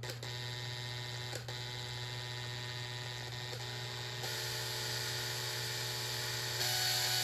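Electric drill spinning a welded steel-rod fork that winds a ratchet strap into a roll, a steady motor whine. The drill speeds up about four seconds in and again near the end, each time running higher and louder.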